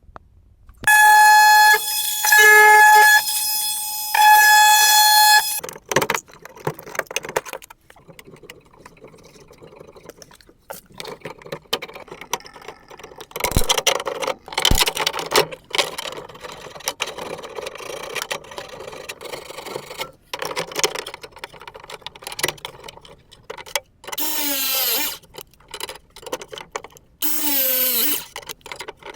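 Three loud, steady horn-like blasts open the clip. Clicks, knocks and clatter of tools and fittings follow. Near the end a small motor runs twice for about a second each time, its pitch wavering under load.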